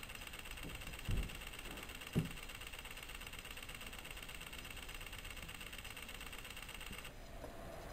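Steady recording hiss with a faint high whine, broken by two dull low thumps about a second apart near the start, like a handheld camera being bumped. The whine drops out near the end.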